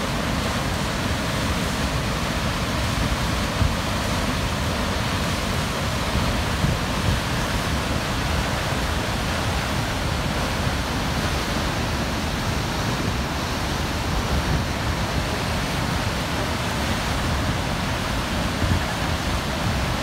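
Huka Falls on the Waikato River: a large volume of water pouring over the falls and churning in the pool below, heard as a loud, steady rush.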